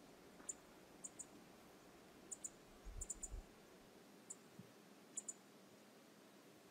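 A dozen or so short, sharp high clicks at irregular intervals, several in quick pairs, over a faint steady background hiss.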